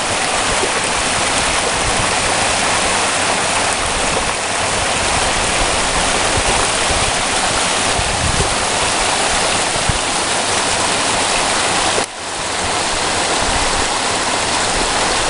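Shallow creek water running over rocks: a steady rushing, with a brief dip about twelve seconds in.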